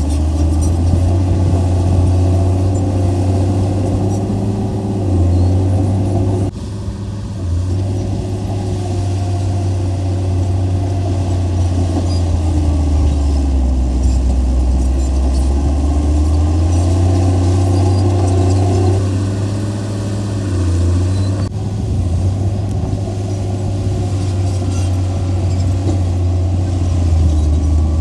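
Heavy diesel engine of earthmoving machinery running under varying load, its low drone rising and falling in pitch. The sound drops briefly about six and a half seconds in.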